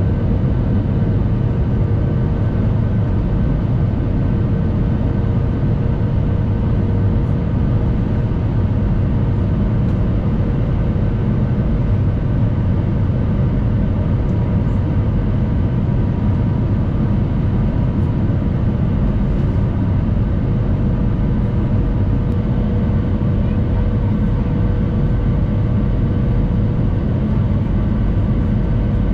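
Steady cabin noise of an Airbus A320 in flight, heard from a window seat over the wing: a deep, even rumble of engines and rushing air, with a few faint steady engine tones above it.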